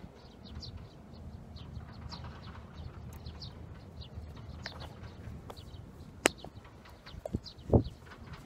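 Small birds chirping in short repeated calls over a low rumble, with a sharp click about six seconds in and a couple of thumps near the end.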